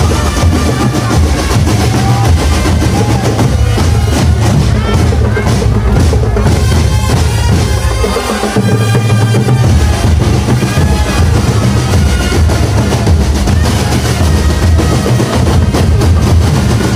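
Marching drum band playing: bass drums and snare drums with rolls, under a melody line. The bass drums drop out briefly about eight seconds in.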